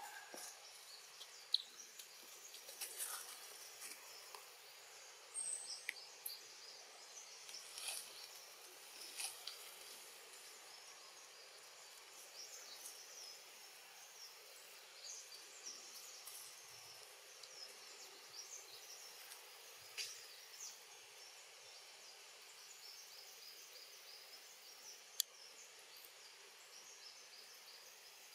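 Faint, steady forest background of insects and birds chirping high and thin, broken by a few sharp clicks.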